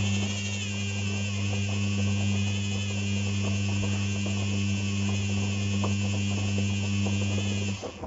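Motor in a Beko appliance giving a steady, loud mains-frequency buzz with a faint hiss and small ticks over it, then cutting off suddenly near the end. The owner questions whether the buzzing is normal.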